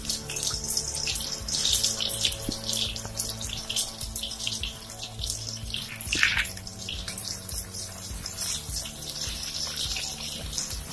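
Chopped onions sizzling and crackling in hot oil in a kadhai, with a steady hiss and frequent small pops as the oil spits.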